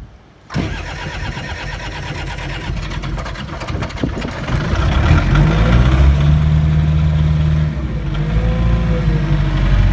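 New Holland skid steer's engine starting about half a second in and running, growing louder from about five seconds in as it is throttled up.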